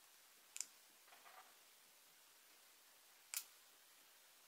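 Re-Ment miniature plastic food pieces being set on a tiny plastic plate: two sharp light clicks, one under a second in and one about three and a half seconds in, with a soft scrape between them, over near silence.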